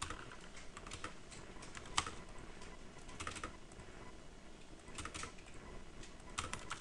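Computer keyboard being typed on in short, irregular runs of a few keystrokes, with one sharper single click about two seconds in.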